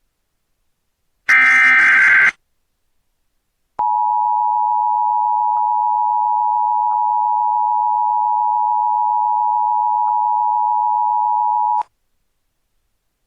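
Emergency Alert System broadcast tones: a burst of SAME header data lasting about a second, then after a short gap the EAS two-tone attention signal (853 and 960 Hz together), held steady for about eight seconds before cutting off.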